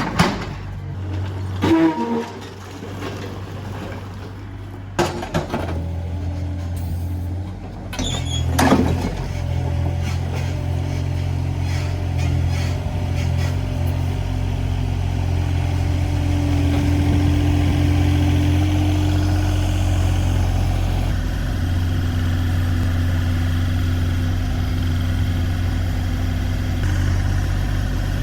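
Engine of a construction machine running steadily. A few sharp knocks sound in the first nine seconds.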